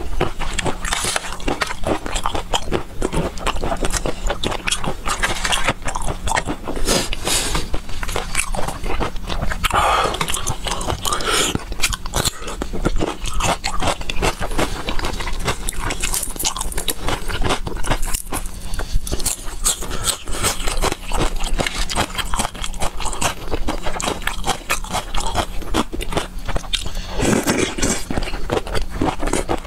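Close-miked eating sounds: continuous wet chewing and crunching of fresh greens and shrimp in chili sauce, with many small clicks and a spoon clinking on the tray.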